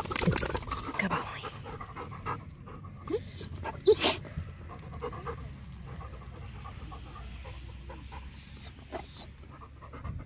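A chocolate Lab panting close to the microphone. There is loud rustling at the start and a single sharp click about four seconds in.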